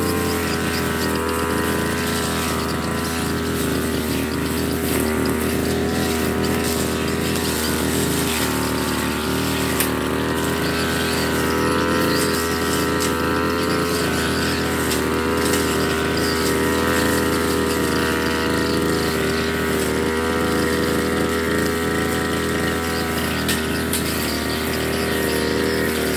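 Backpack brush cutter's small petrol engine running steadily at high speed while cutting grass and weeds, its pitch wavering slightly as the load changes.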